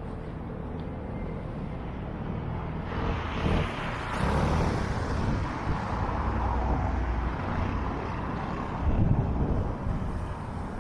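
Road traffic: a steady low rumble, with vehicles passing close and their tyre noise swelling about three seconds in and again near the end.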